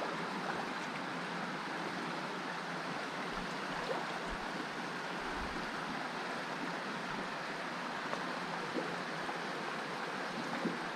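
Steady rush of a small stream's water running over rocks, with a few faint ticks.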